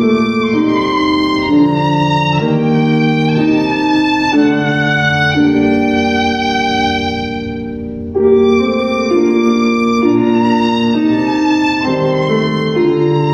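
Background music led by a violin melody over sustained accompaniment. The phrase fades out about eight seconds in, and the next begins at once.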